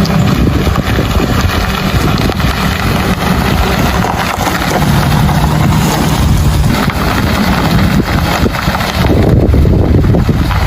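Strong wind buffeting the microphone: a loud, steady rumbling roar, with a low hum coming and going underneath.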